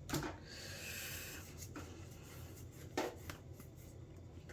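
Trading cards being handled and laid onto piles: soft sliding and rubbing with a few light taps, the clearest about three seconds in.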